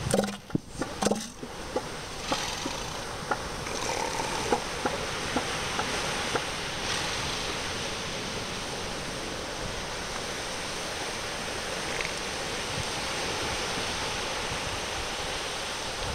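Northern elephant seal calling: a quick series of loud, deep pulses in the first second or so, then a few fainter ones, over a steady hiss of surf.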